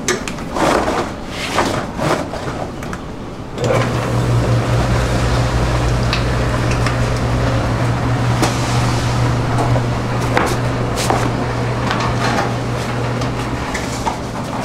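Electric dough sheeter switched on about three and a half seconds in, its motor running with a steady low hum as dough passes through the rollers. Scattered knocks and clatter from handling the dough and tools.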